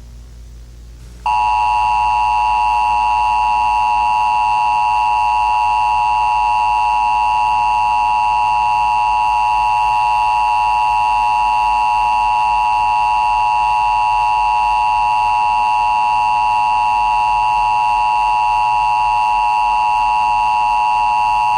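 Emergency Broadcast System attention signal: a loud, steady two-tone alarm (853 Hz and 960 Hz sounded together) that starts about a second in and holds without a break.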